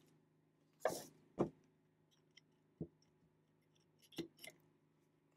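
Handling noises of hand tools on a simulation grenade: scattered knocks and clicks as a strap wrench is fitted around the grenade body and water-pump pliers are brought to the fuse. Two louder knocks come about a second in, a small one near three seconds, and a quick pair of clicks just after four seconds.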